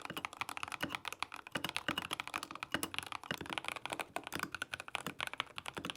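Typing on a Tecware Phantom mechanical keyboard with factory-lubed Tecware switches: a quick, steady run of keystrokes.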